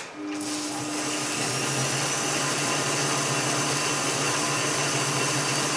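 A click, then a 1950s Mars lathe driven by a braked DC motor starts up. It builds over about a second to a steady run at threading speed, about 300 RPM, with a steady hum.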